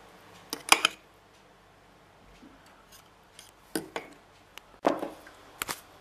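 A metal utensil clinking and scraping against the inside of a ceramic mug while stirring thick cake batter, in a few separate sharp clinks, the loudest about a second in and again near the end.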